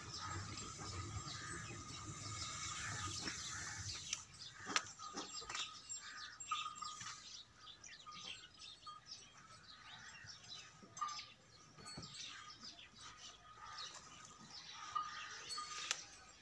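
Small birds chirping and twittering, faint, with a few light taps or clicks scattered through.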